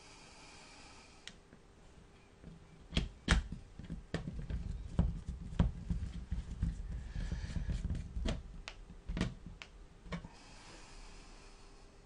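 A small screwdriver driving screws into a netbook's plastic bottom cover. There is a run of sharp clicks and light knocks for several seconds in the middle, with a soft rustle at the start and again near the end.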